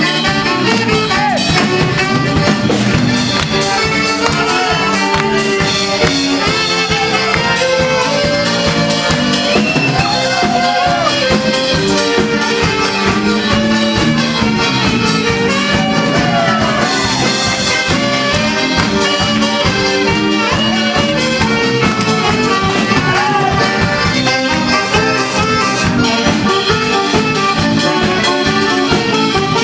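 Live dance-band music led by accordion and saxophone over a steady beat.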